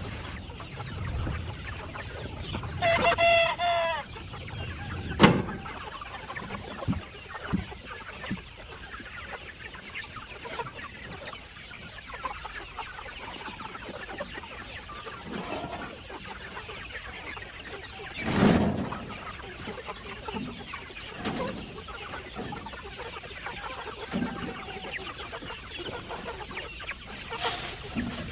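Free-range chickens clucking, with a rooster crowing once about three seconds in. A few short, sharp knocks break in, the loudest about two-thirds of the way through.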